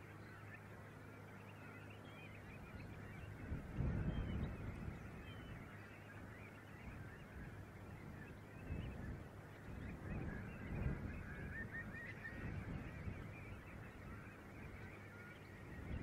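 A large mixed flock of coastal waterbirds and waders on a mudflat, calling without a break in a dense chatter of many short, overlapping calls. A low rumble swells up about four seconds in, twice more around nine to eleven seconds, and again at the end.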